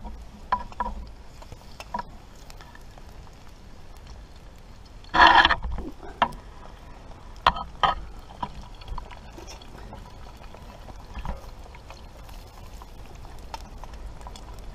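A small cast-iron frying pan being handled over campfire embers, with a steady low hiss and crackle. About five seconds in there is one loud rustling noise lasting about half a second, followed by several sharp clicks and knocks.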